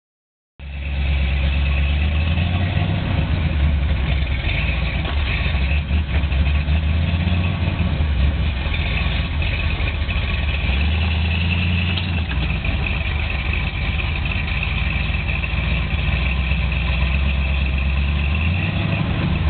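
Ford Ranger 4x4 pickup's engine running steadily at low revs, a constant low rumble whose pitch shifts slightly a couple of times.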